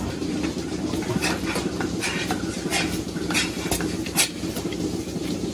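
Milking parlour machinery: a steady low hum with an uneven run of short hisses and metallic clinks, roughly two a second.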